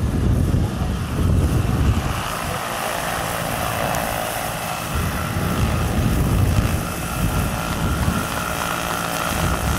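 Electric scale model CH-47 Chinook tandem-rotor helicopter flying low, flaring and setting down, its two rotors beating. A steady high whine from the electric drive sets in about two seconds in and holds as it lands.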